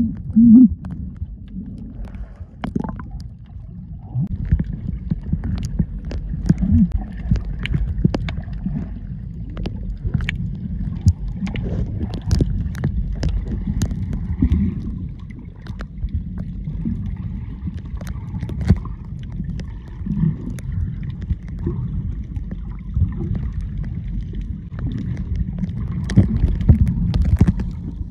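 Underwater sound picked up by a submerged camera: a steady, muffled low rumble of moving water, with scattered sharp clicks and crackles.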